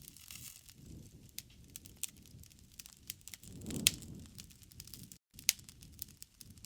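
Wood fire crackling in a fireplace: a steady patter of small snaps, with a sharp pop just before four seconds in and another about a second and a half later.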